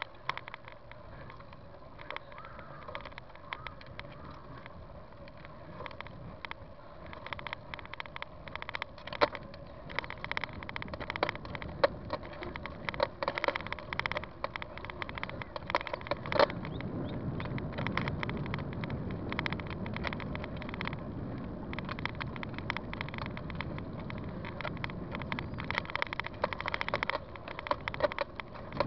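Bicycle ridden along a paved trail: steady tyre and ride noise with frequent sharp clicks and rattles over the bumps. A louder low rushing sound sets in a little past halfway.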